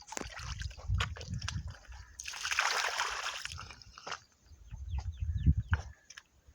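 Water sloshing and splashing, with one longer splash about two seconds in, among low thumps and clicks.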